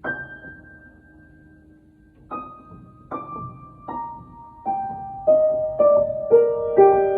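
Background piano music: single struck notes that ring and die away, slow at first, then quicker, stepping down in pitch and filling out into chords near the end.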